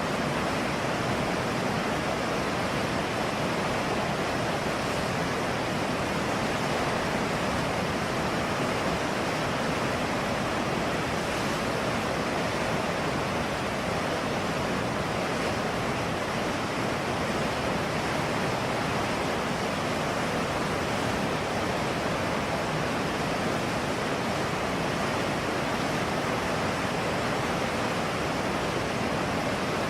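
Fast-flowing river water rushing steadily, an even noise with no breaks or changes.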